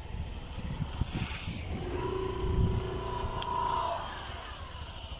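A motor vehicle running nearby, with uneven low rumbling from wind on the microphone. A steady tone about two seconds long sounds near the middle.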